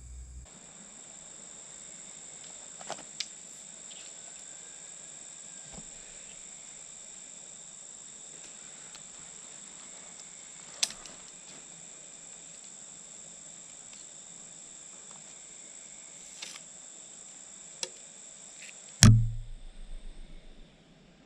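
Steady high-pitched chorus of crickets, with scattered sharp clicks and one loud thump near the end that rattles off for about a second.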